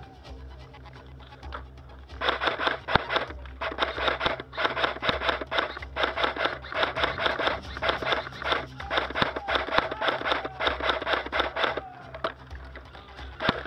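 Airsoft electric rifle firing long full-auto strings, a fast rattle of shots. It starts about two seconds in, goes on with a few short breaks and stops near the end.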